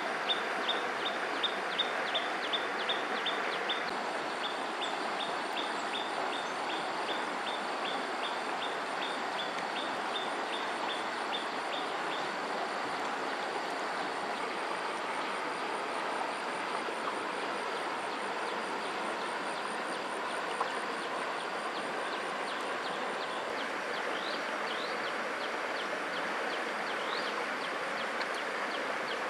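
Steady rush of flowing river water, with a fast run of short high chirps, about three or four a second, over the first twelve seconds and a faint high trill throughout; a few short rising calls come near the end.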